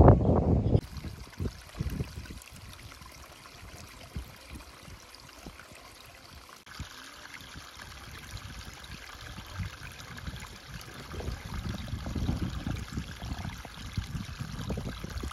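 Steady trickling of running water, with gusts of wind rumbling on the microphone that grow stronger toward the end.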